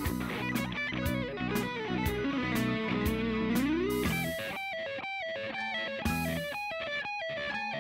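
Background rock music led by electric guitar over a steady beat. About four seconds in, the beat drops away and the guitar plays separate picked notes.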